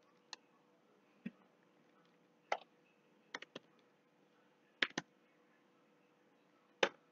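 Computer keyboard keystrokes: about nine separate, unhurried key clicks, a few in quick pairs, as a line of code is typed.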